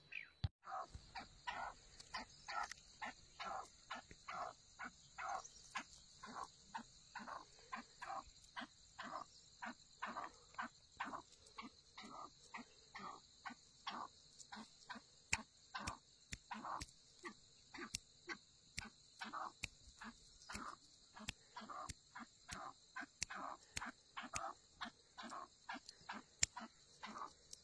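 Black francolin giving a long run of short, evenly repeated call notes, about two to three a second, with a steady high hiss behind.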